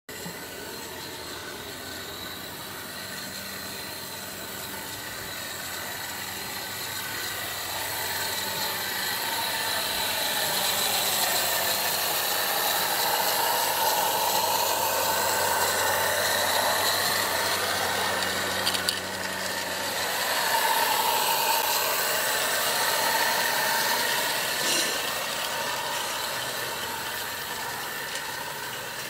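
16mm-scale live-steam model of the Single Fairlie locomotive 'Moel Tryfan', driven by an oscillating-cylinder steam engine, running on 32mm-gauge track with a coach: a steady mechanical rattle of its engine and wheels on the rails. It grows louder as it passes close, around halfway, then fades as it runs away.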